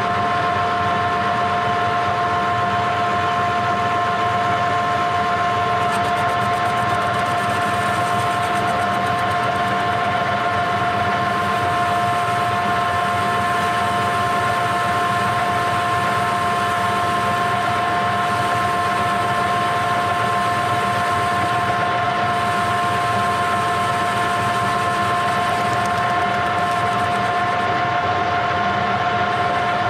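Metal lathe running steadily with a constant whine, its tool cutting a urethane power-feeder wheel down at a spindle speed of roughly 600 rpm.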